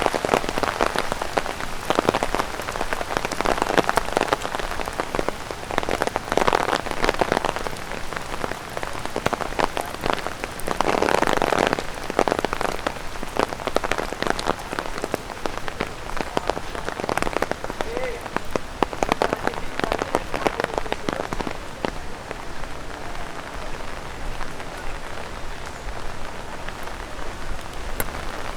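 Rain and drops from overhanging trees pattering on an umbrella in dense taps, swelling louder every few seconds.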